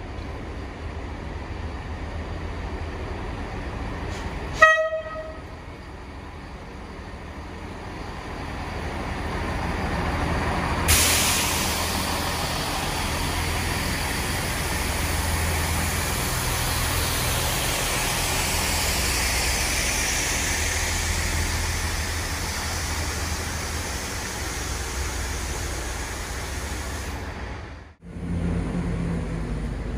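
Diesel multiple unit giving one short horn toot about four and a half seconds in, then its engines and wheels growing louder as it runs in alongside the platform, loud and steady through the middle and easing off near the end.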